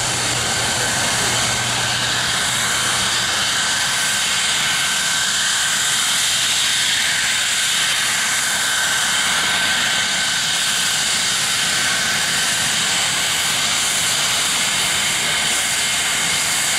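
Saab 37 Viggen's Volvo RM8 turbofan running at taxi power as the jet rolls past, a steady jet whine with faint high tones held over it.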